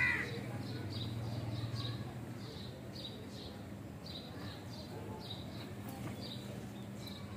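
Small birds chirping repeatedly, about two short high chirps a second, with a sharp falling squeak right at the start and a low steady hum during the first two seconds.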